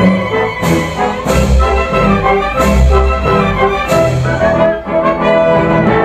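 Live orchestra playing a brass-led passage with sustained chords, marked by several sharp, loud accents.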